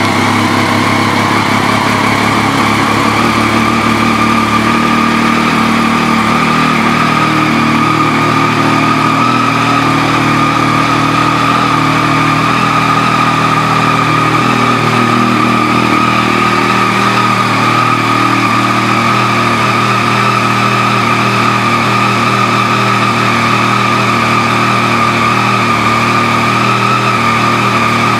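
2012 Triumph Street Triple R's 675 cc inline-three idling steadily through an aftermarket exhaust, with a steady high-pitched whine over the engine note.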